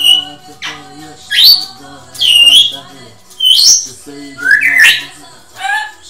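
African grey parrot whistling and squawking: about seven sharp rising whistles, roughly one a second, over quieter music.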